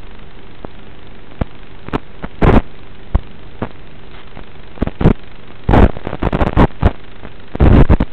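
Analog FPV video-receiver audio: a steady hiss broken by irregular loud crackles of static, the sign of the radio link breaking up. The crackles come more often in the second half and are loudest near the end.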